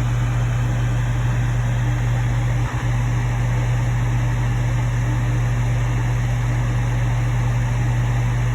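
Steady fan-like whir with a strong low hum underneath, dropping out for an instant a little under three seconds in.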